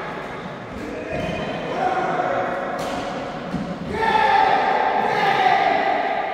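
Players' voices calling and talking in a sports hall with a strong echo, one voice loudest for about two seconds near the end. A few sharp clicks of rackets hitting shuttlecocks sound about one and three seconds in.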